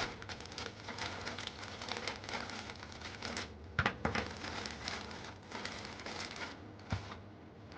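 Plastic packaging crinkling and rustling while small hardware parts are handled. A couple of sharp knocks come about four seconds in and another near the end.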